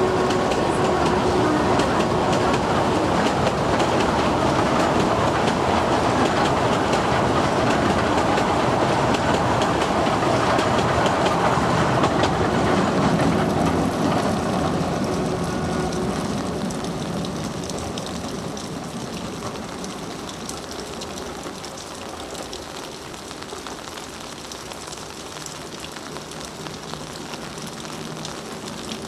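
Kurobe Gorge Railway trolley train of 13 coaches rolling past, wheels clattering over the rail joints. The clatter is steady for about half the time, then fades as the train moves away.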